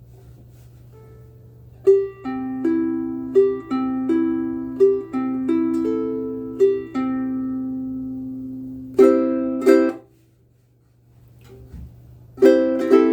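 Ko'olau KC-10 ukulele strung with aNueNue Clearwater strings: single notes plucked one at a time, each left to ring out, then two strummed chords about nine seconds in, a pause of about two seconds, and more strumming near the end. A faint steady low hum sits underneath.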